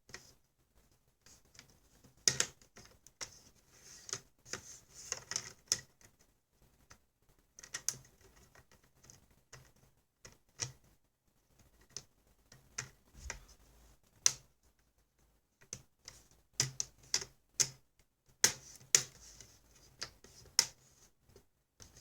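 Irregular sharp plastic clicks and snaps, singly and in quick clusters, as a laptop's plastic screen bezel is handled and pressed back into place around a newly fitted display panel.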